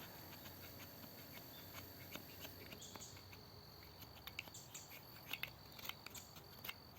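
Faint, irregular crackling of a small tinder fire, with a steady high insect-like tone underneath.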